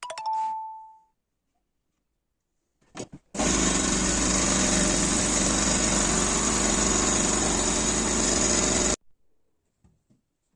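TIREX TROAC100-2/230 100-litre air compressor starting with a click and running loudly and steadily, a low hum under a strong high hiss, for about five and a half seconds before stopping abruptly. Just before, a short metallic ping rings out over about a second.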